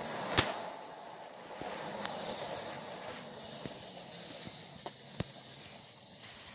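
Lionel 2029 O-gauge 2-6-4 steam locomotive and its cars running on tinplate track, a steady mechanical whirr with a few sharp clicks, the loudest about half a second in. It grows slightly fainter as the train runs away.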